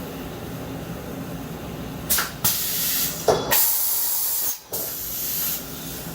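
Compressed air hissing in short blasts, then a longer blast of about two seconds with a brief break in it, over a steady machine hum. This is typical of the spindle air blow as the vertical machining center changes a tool.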